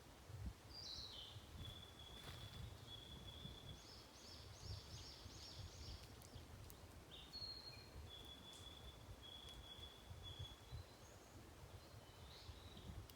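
Faint bird song: two phrases of high, steady whistled notes, the first joined by a run of quick repeated chirps, and a short call near the end, over a low rumble of wind.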